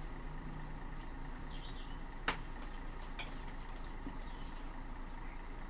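A ceramic plate set down on a table with one sharp clink about two seconds in, and a lighter click about a second later, over a steady low hum.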